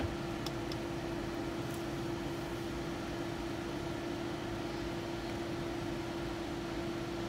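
Steady hum inside a parked car's cabin, with one constant droning tone: the car idling with its air-conditioning fan running.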